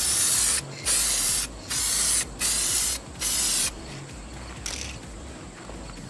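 Aerosol can of touch-up paint sprayed in five short bursts of about half a second each, stopping a little past halfway through.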